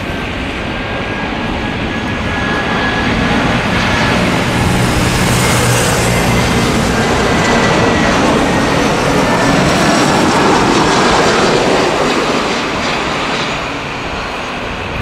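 Airbus A320's CFM56 turbofan engines on landing approach, passing close by: a loud jet rumble with a high fan whine that builds to its loudest about ten seconds in, then eases off as the aircraft flares over the runway.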